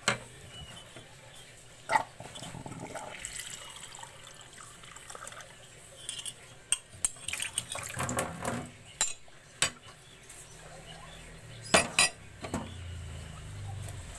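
Dishes being washed by hand: a metal spoon and a mug knocking and clinking against other dishware as they are scrubbed with a sponge, with water in the background. The loudest clinks come about two seconds in and as a pair near the end.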